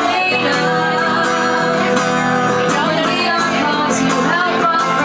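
Acoustic guitar being strummed, accompanying live singing.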